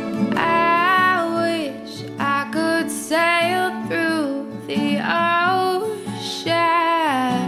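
Background music: a woman singing in several phrases over acoustic guitar.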